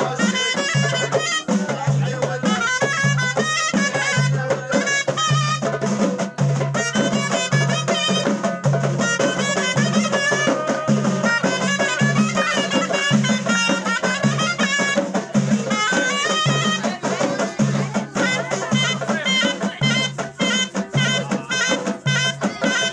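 Live Moroccan aita folk music: a wind instrument plays a winding melody over a steady beat of hand-held frame drums.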